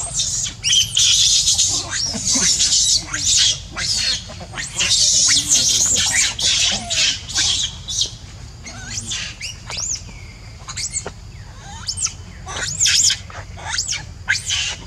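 Young macaques screeching and squealing: rapid high-pitched cries, packed together for about the first half, then shorter separate calls.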